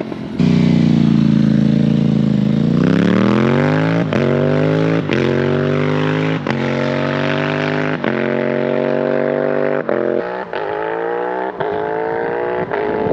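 Aprilia 660 parallel-twin motorcycle engine accelerating hard through the gears: the revs climb steadily, with a brief break in the sound at each of several quick upshifts.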